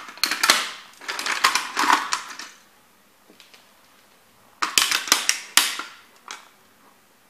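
A vintage plastic kit model car cracking and crunching under a Timberland boot sole as it is stamped on. There are two bouts of sharp plastic cracks, the first in the opening two and a half seconds and the second from about four and a half seconds in.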